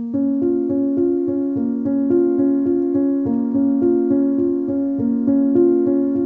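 Background keyboard music with a piano sound, playing a steady, evenly repeating pattern of notes.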